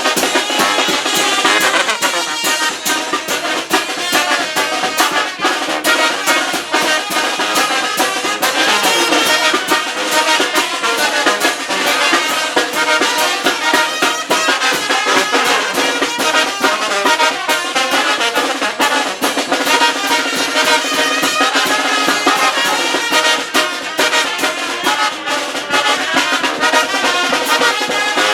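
Mexican carnival brass band playing a lively tune on trumpets and trombones over a busy drum beat.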